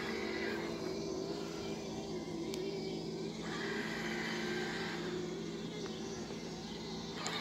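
3D-printed robot lawn mower's electric motors running with a steady hum, its pitch wavering slightly as it drives and turns on the grass.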